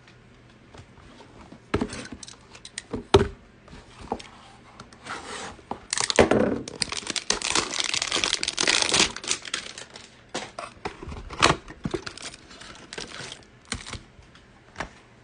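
A trading-card hanger box being torn open and its plastic wrapper pulled off. There are a few sharp clicks and taps, then about three seconds of steady tearing and crinkling starting around six seconds in, then more scattered handling taps.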